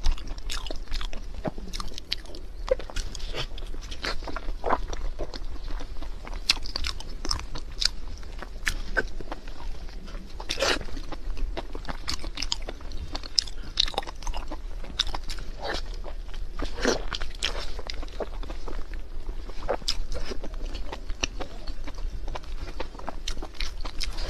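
A person eating with their mouth close to the microphone: wet chewing and lip smacking, a steady string of irregular short clicks and squelches.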